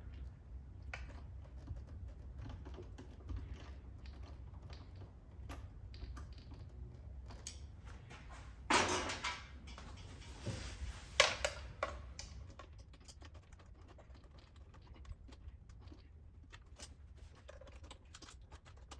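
Scattered light clicks and taps of hand work with small parts, with a brief louder rustling scrape about nine seconds in and a sharp click about two seconds later, over a low steady hum.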